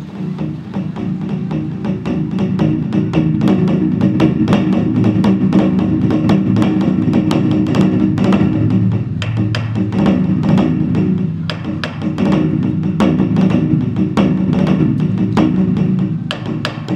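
Korean traditional music for the seungmu dance: rapid, dense drum strokes over held tones, loud throughout and building about two seconds in.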